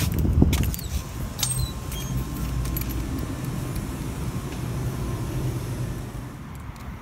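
Clicks and rattles of a glass shop door's metal pull handle and latch as it is opened during the first second or so, then a steady low rumble.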